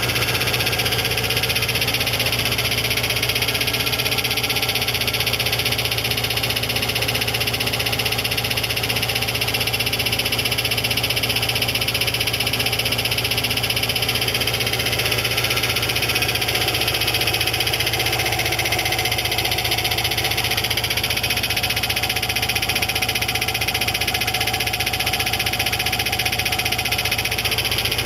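Subaru Forester SF5 boxer engine running steadily with a rapid, even knocking rattle throughout. This is the abnormal noise of a broken drive plate (flexplate) between the engine and the torque converter.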